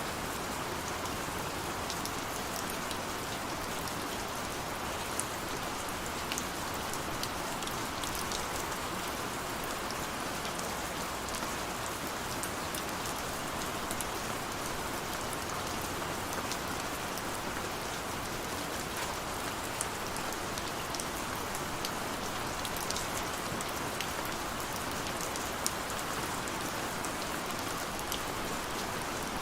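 Steady rain hissing on a surface, with scattered sharp drops ticking through it.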